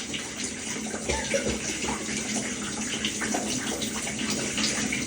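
Shower water running steadily.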